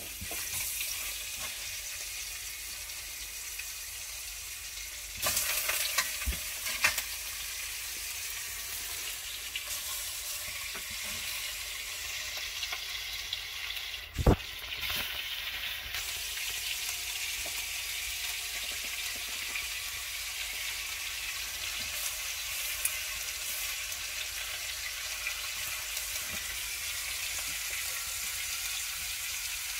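Oxtail pieces searing in hot fat in a pot, a steady sizzle. A few sharp clacks of metal tongs against the pot as pieces are laid in, the loudest about fourteen seconds in.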